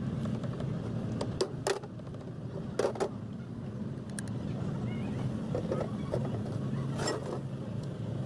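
A steady low mechanical hum with scattered sharp metallic clinks and knocks, the loudest a double knock about three seconds in and another about seven seconds in.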